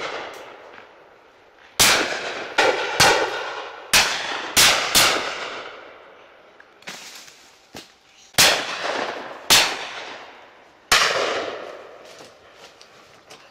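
Shotguns firing at driven game birds: about nine loud shots in irregular succession, some in quick pairs, each followed by a rolling echo, with a couple of fainter distant shots in between.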